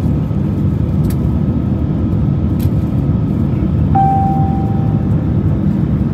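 Steady, deep cabin roar of an Airbus A350 in flight, its Rolls-Royce Trent XWB engines and airflow heard from inside the passenger cabin. About four seconds in, a single steady tone sounds for about a second.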